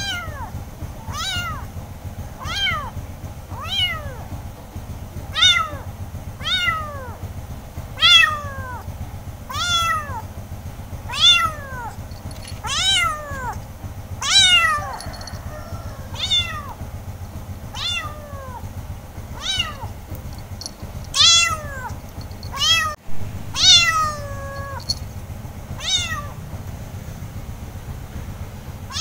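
Young orange kitten meowing over and over, roughly one high meow every second or so, each call falling in pitch; a few calls in the middle and near the end are louder.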